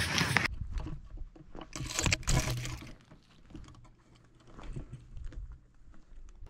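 Rustling and small clicking handling noises, with a louder burst of rustling about two seconds in and faint scattered clicks after it.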